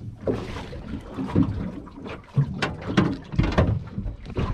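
Small aluminium boat rocking in swell: water slapping against the hull, with irregular knocks and rattles aboard.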